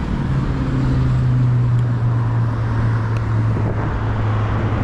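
Road traffic: a motor vehicle's steady low engine hum over tyre and road noise, its pitch dipping slightly as it goes.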